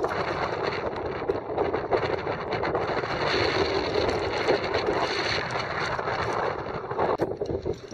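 Wind blowing across the microphone, a dense steady rush that gusts unevenly.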